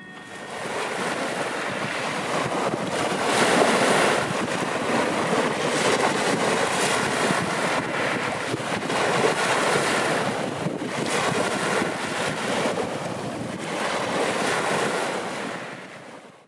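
Sea surf with wind: a steady rushing wash that swells and ebbs, fading out at the very end.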